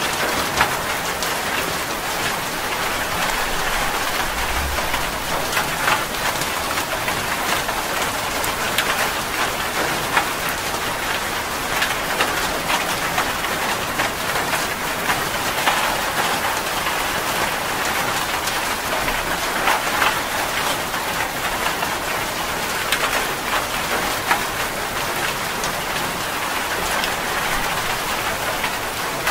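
Steady rain: a dense, even hiss scattered with many sharp ticks of individual drops splashing.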